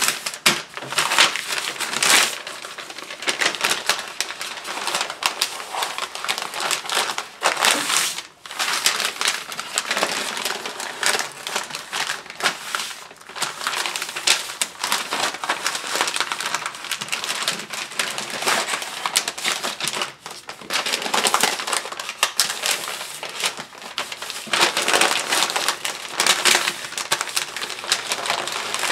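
Pink butcher paper rustling and crinkling as it is folded and pressed tight around a rack of ribs. It is a continuous run of crackly crumples and scrapes, with brief pauses twice.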